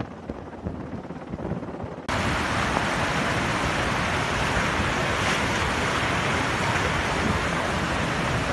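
A helicopter is heard faintly for about two seconds. Then, after a sudden cut, comes the loud, steady rushing of a flash-flood torrent pouring down a road.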